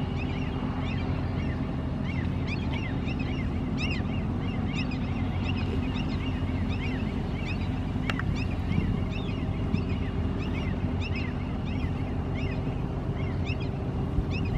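Steady low drone of the passing crew transfer vessel's engines, with many short bird chirps, several a second, over it.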